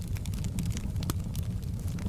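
Wood fire crackling, with frequent small sharp pops and snaps over a steady low rumble of the flames.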